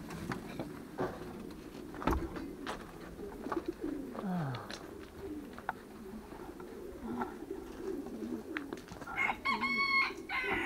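Homing pigeons cooing in and around their loft, with scattered clicks and knocks, and a short high-pitched squeal about nine seconds in.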